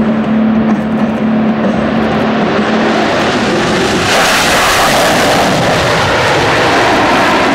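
F-22 Raptor's twin F119 turbofan engines roaring on a low, fast pass. The jet noise broadens into a full, hissing roar about four seconds in as the jet goes by close and pulls up.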